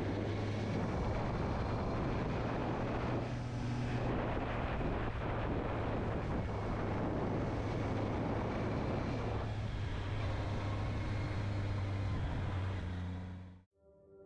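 Honda CB650R's inline-four engine running steadily under way, with wind rushing over the microphone. The sound cuts off abruptly near the end.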